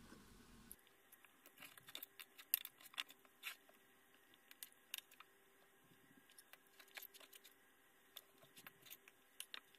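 Faint, irregular clicks and light clinks of a metal knife and fork against a plate while cutting and eating.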